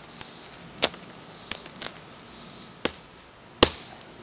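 Claw hammer striking LiPo battery packs lying on hard ground to puncture them: about five sharp knocks spaced irregularly, the loudest one shortly before the end.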